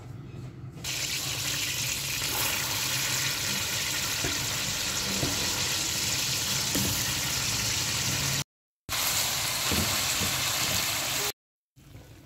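Oil sizzling in a pan as paste and then raw chicken pieces fry, a loud steady hiss that starts suddenly just under a second in and drops out twice briefly near the end.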